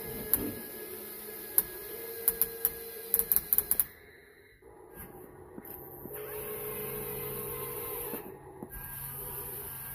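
Small electric motors of a Top Race RC toy forklift whirring as it lifts and carries a model truck chassis, with a run of sharp clicks in the first four seconds and a steadier motor hum from about six seconds in.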